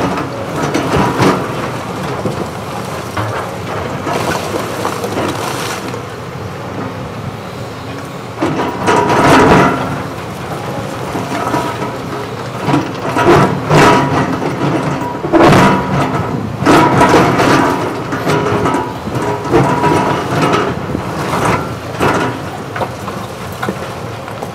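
Cat 329E excavator's diesel engine running steadily while its bucket digs into and drags through broken concrete rubble. There are repeated crashes and scrapes of concrete chunks, the loudest about nine seconds in and again through the middle.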